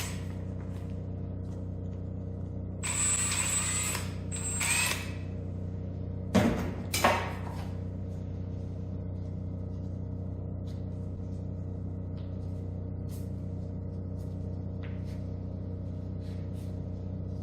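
Power drill running in two short bursts about three and five seconds in, then two sharp knocks a second or so later, over a steady low hum.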